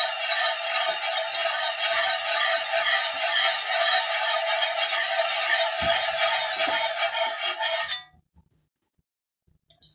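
Wire whisk scraping steadily round a cast iron skillet, stirring a thick butter-and-flour roux as the flour cooks. It stops abruptly about eight seconds in.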